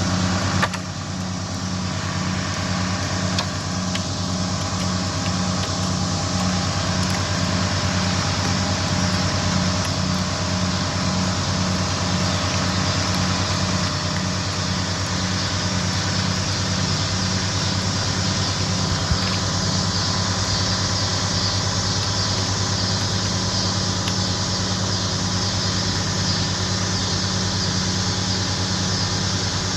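Small tractor engine running steadily under load as it pulls a large storm-broken tree limb, with an even, pulsing hum.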